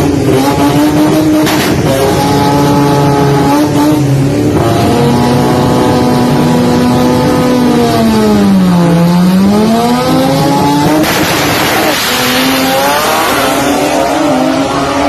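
Toyota Starlet engine running hard at high revs with a steady pitch. The revs drop and climb back up about nine seconds in, and a short burst of hiss comes a couple of seconds later.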